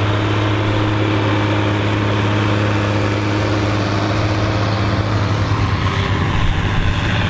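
Big farm tractor's engine running steadily under plowing load, a deep even hum; about five seconds in the sound turns rougher and more uneven.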